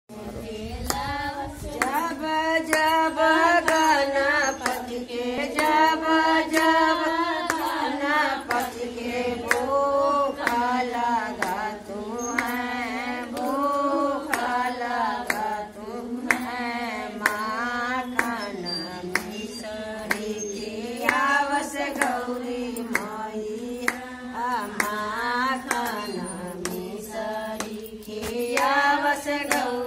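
Women singing a devotional bhajan in a melodic line, keeping time with a steady beat of hand claps.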